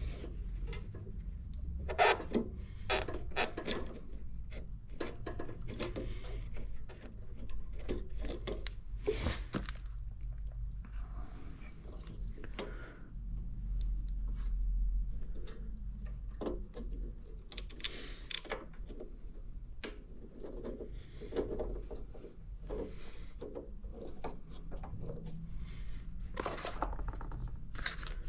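Hand tools and small metal parts clinking, knocking and scraping in irregular bursts, over a low steady hum.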